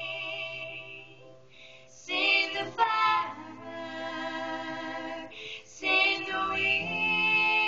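Female voice singing a slow song in long held notes over a steady low accompanying note.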